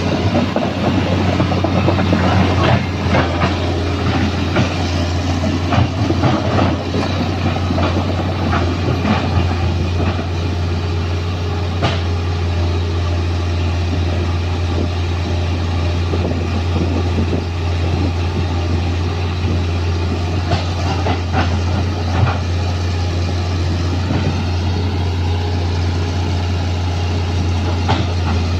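Excavator's diesel engine running steadily with a constant low hum, over a continuous metallic clatter and scattered knocks from the machine.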